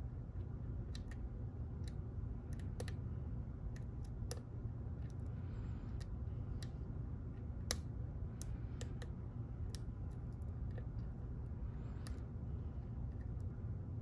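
Irregular light metallic clicks and ticks of a lock pick working the pins inside an ASSA Twin Exclusive lock cylinder, over a steady low hum.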